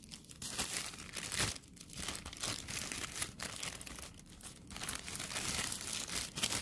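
Plastic packaging crinkling and rustling as it is handled, unevenly, with louder stretches.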